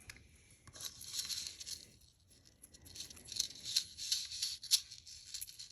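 Soft crinkling and rustling with small sharp clicks, in two spells starting about one and three seconds in, as pieces of costume jewelry are handled.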